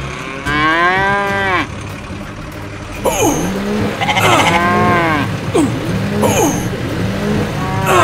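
Farm-animal calls, a cow mooing and goats bleating: one long call about half a second in, then a run of shorter calls from about three seconds on, over a low sound that swells about once a second.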